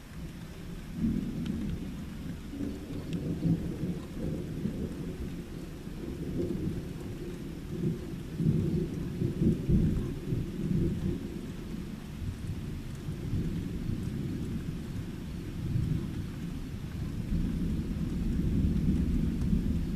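Thunder rumbling low and long, swelling around the middle and again near the end, over a steady patter of rain.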